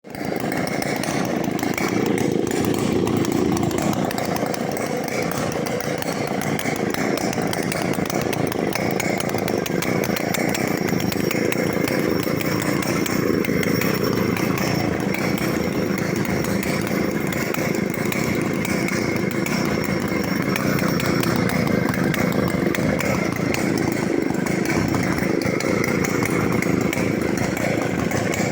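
Large vintage Stihl two-stroke chainsaw engine running steadily, with no clear revving.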